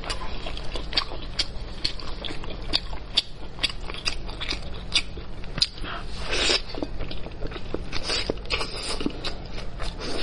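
Close-miked wet chewing and lip-smacking of spicy braised pork elbow, a steady run of short, sharp smacks. One longer, louder noise comes about six and a half seconds in.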